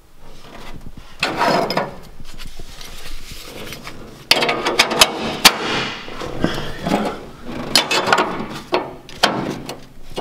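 Steel strengthening plate being handled and shifted against the car's sheet-metal floor, scraping and clanking in several irregular bursts. The loudest part is a rattle of sharp metal clicks about halfway through.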